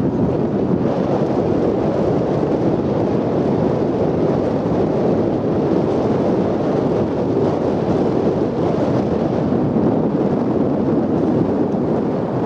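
Wind buffeting the camera microphone: a loud, steady rushing rumble with no clear engine note in it.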